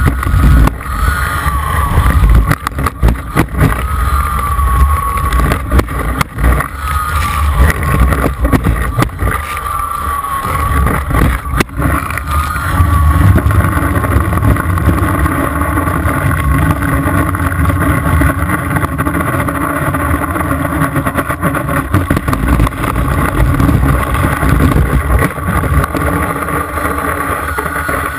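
Water ski cutting across a lake, heard from a camera on the ski's tip: heavy wind rumble on the microphone and spray splashing and hissing, with sharp water hits. Over this the towboat's engine whines, its pitch wavering through the first half.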